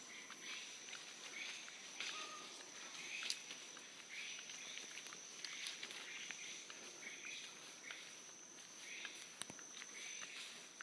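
Footsteps of a hiker walking along an overgrown forest trail, brushing through low plants at about one step a second. A steady high-pitched whine runs underneath, with a few small clicks and snaps.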